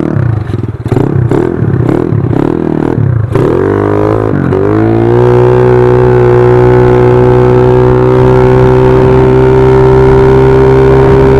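Yamaha Mio scooter's single-cylinder four-stroke engine, bored out with a 59 mm block and fitted with a Hispeed aftermarket exhaust pipe. The throttle is blipped about twice a second for roughly three seconds. Then the revs climb and are held at a steady high pitch, an exhaust note the owner says is no longer as crisp as when the pipe was new.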